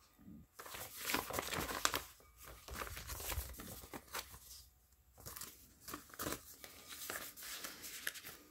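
Paper rustling and crinkling as a stamped paper envelope is handled and turned over against a handmade journal's pages. It comes in irregular bursts with short pauses, and near the end the envelope is slid into a paper pocket on the page.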